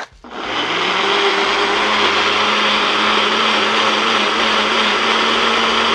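Countertop blender motor switching on about a third of a second in, spinning up and then running at a steady high speed, pureeing an avocado and cilantro salsa.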